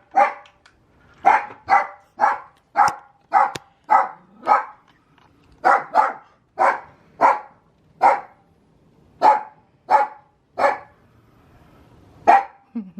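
A dog barking over and over, about one or two barks a second, with a short pause near the end before a last bark.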